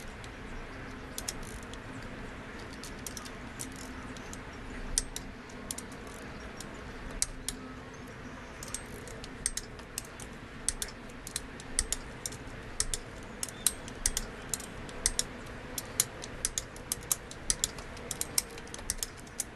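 Ratchet torque wrench tightening the main bearing cap bolts on a Honda B18 engine block, its pawl clicking in quick runs as the handle is swung back between pulls. The clicks come sparsely at first and grow denser and more regular about halfway through.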